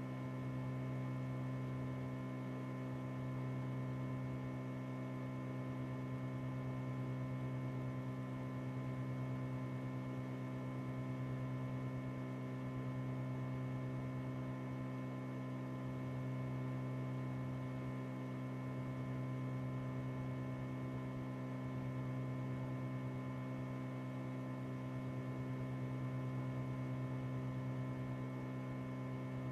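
Steady electrical mains hum: a low buzz with a stack of evenly spaced overtones that never changes, and no other sound.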